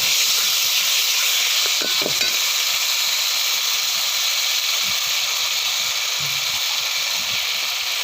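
Ground spice paste and vegetables frying in hot oil in a pan, a steady sizzle, with a few light stirring strokes: the masala being sautéed (kosha) down.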